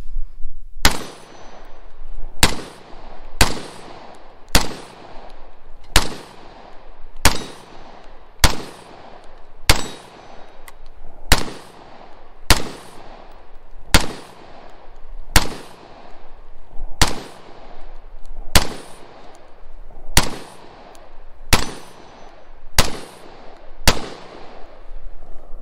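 ATI Omni Hybrid AR-15 rifle fired semi-automatically: about eighteen single shots at a steady pace of roughly one every second and a half, each crack followed by a ringing echo that dies away.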